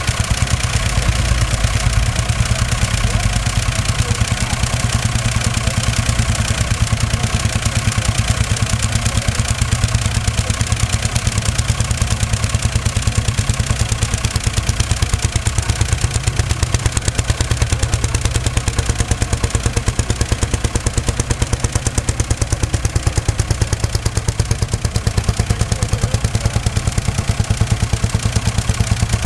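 Old diesel tractor and machinery engines running, with a steady, even engine beat and a strong low hum that holds level the whole time.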